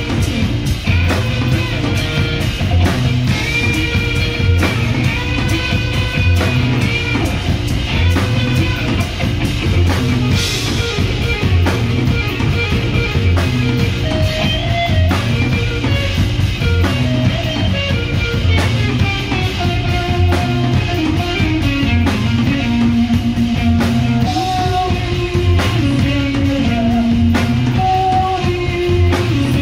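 Psychedelic rock band playing live and loud: electric guitar, bass guitar and drum kit keeping a steady beat.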